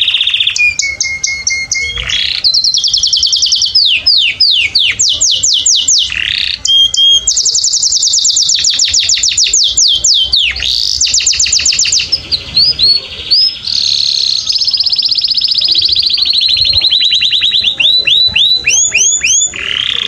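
Domestic canary singing a continuous, loud song made of fast trills. Each phrase is a run of quick repeated notes, some held at one pitch and some sweeping downward, and the song switches to a new phrase every second or two.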